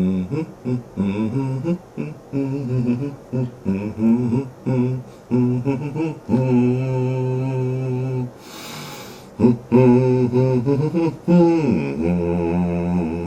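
A person humming a tune: a run of short notes, then longer held notes, a brief pause near the middle, and a falling note that settles into a long low note which stops at the end.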